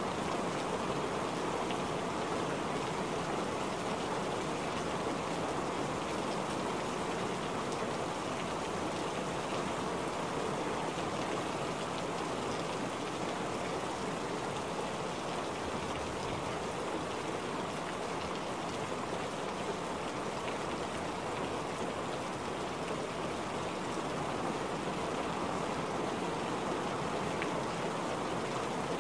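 Steady rain: a dense, even hiss of falling rain that does not change, with no separate drops standing out and no thunder.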